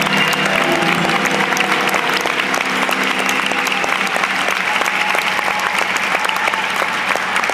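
Audience applause, a steady patter of clapping, while the last chord of the music fades away over the first few seconds.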